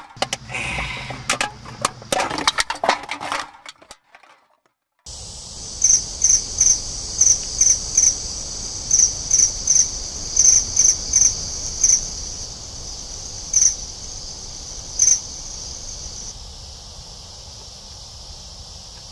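Insects droning in a steady, high-pitched outdoor chorus, with a louder, sharp chirp repeating about two or three times a second that stops a little past the middle; the drone fades out at the end.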